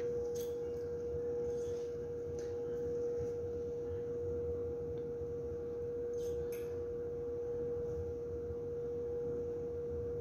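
A steady single-pitched hum, like electrical equipment running, with a few faint ticks as a plastic Petri dish is handled.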